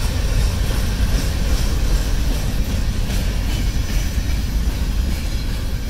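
Freight train's boxcars and double-stack intermodal well cars rolling past close by: a steady rumble of steel wheels on the rails.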